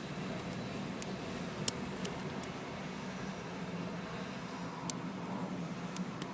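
Lock pick and tension wrench working in a Lockwood 215A40 lockout padlock: a few small, sharp clicks, the clearest about a second and a half in and again near five seconds. A steady low hum runs underneath.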